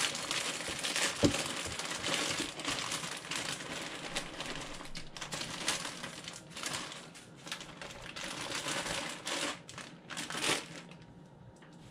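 Plastic bag of shredded coleslaw mix crinkling as it is shaken and emptied into a glass bowl, with one sharp knock about a second in. The crinkling stops near the end.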